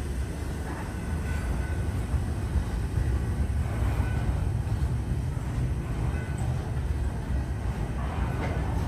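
Freight cars rolling slowly through a yard during switching: a steady low rumble of wheels on the rails, with faint high squeals now and then.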